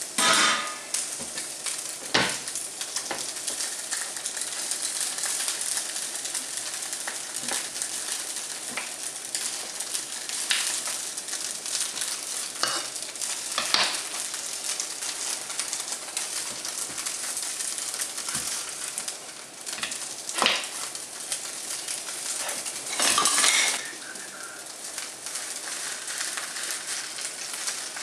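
Grated potato rösti sizzling steadily in a frying pan over a low heat, with occasional clinks and scrapes of a metal utensil against the pan and the steel cooking rings; one louder scraping clatter near the end.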